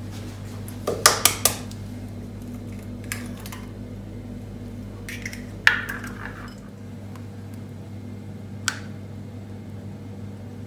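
Eggs being cracked into a glass bowl: sharp clinks and knocks of glass and kitchen utensils, three in quick succession about a second in, a few more around the middle, and one last clink near the end.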